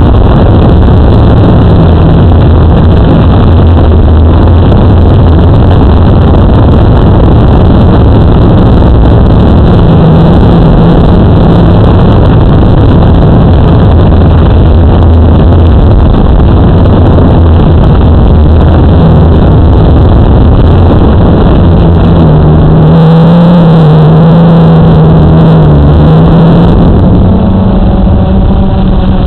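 Multirotor drone's electric motors and propellers buzzing loud and steady, picked up by the camera mounted on the drone itself. About three-quarters of the way through, the hum shifts higher and wavers for a few seconds before settling.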